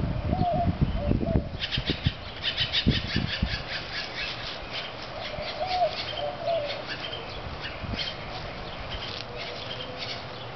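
Small fire of dry leaves and sotol crackling with a dense run of irregular snaps, just after a hand-drill coal has been fanned into flame. Low rumbling gusts come in the first second or so, and a few short warbling chirps are heard.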